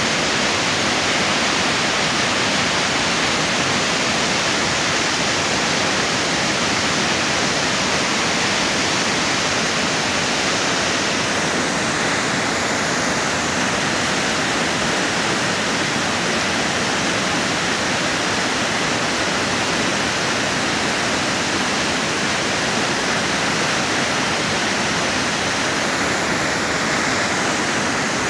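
Waterfall in full flow, white water pouring down a rocky gorge, making a loud, steady rushing hiss of falling water.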